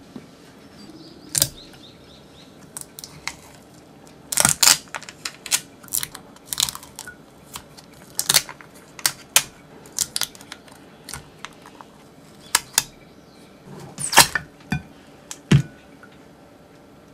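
Close handling noise as adhesive tape strips are peeled off the rim of a stainless-steel bowl nested in a glass bowl, and the bowls are handled and lifted apart. It comes as an irregular run of sharp clicks, taps and crackles, with the loudest around a third of the way in and again near the end.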